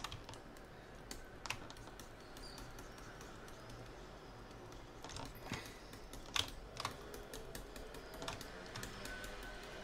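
Irregular clicks and taps from a computer keyboard and mouse, scattered through the stretch, with the sharpest click about six and a half seconds in, over a faint low hum.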